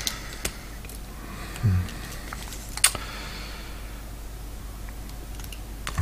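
Faint metallic clicks and scraping from handling a Yale lock cylinder and brass plug follower, with one sharp click a little before the middle.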